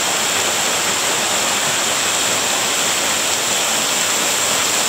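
Small waterfall pouring down a rock face, a steady, loud rush of falling water.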